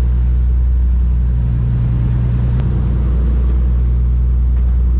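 Fishing boat's engines running steadily under way: a deep, even drone.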